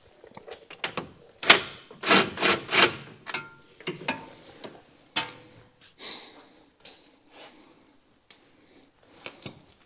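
Already-loosened control arm bolts being run off with a tool: a few short bursts of mechanical whirring about a second and a half to three seconds in, then scattered clicks and metal clinks.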